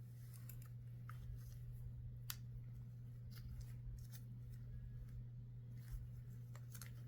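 Faint scattered clicks and light metallic ticks of a balisong knife being handled and turned over, over a steady low hum.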